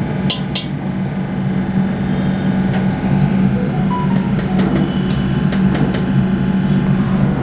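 Steady machine hum of a commercial kitchen, with a few sharp metal clinks of steel utensils against a steel kadai: two just after the start, then lighter taps later on.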